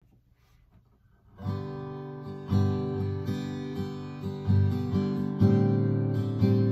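Acoustic guitar strumming a slow song intro, beginning about a second and a half in after near silence.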